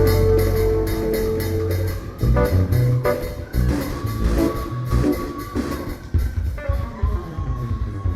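Live church band playing instrumental music: guitar, bass and drum kit keep a steady beat, thinning out near the end.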